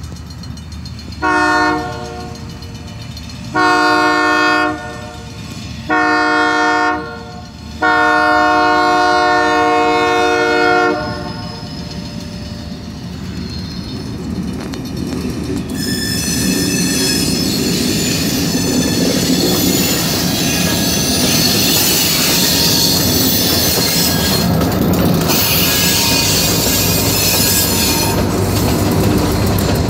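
Great Lakes Central freight train's diesel locomotive sounding its horn in four blasts for a road crossing, the last held about three seconds. The train then draws in and passes, its engine and cars rumbling with high metallic wheel squeal.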